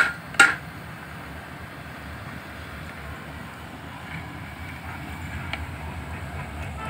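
Two sharp knocks in quick succession at the start, a knife striking a wooden board while cutting rolled dough, followed by a steady low rumble.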